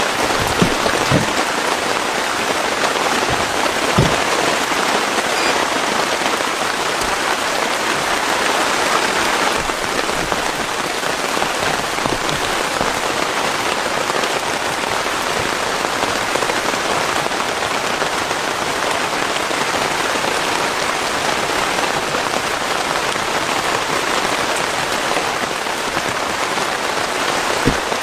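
Heavy rain falling steadily, with a few louder, sharper drop hits near the start and again at the very end.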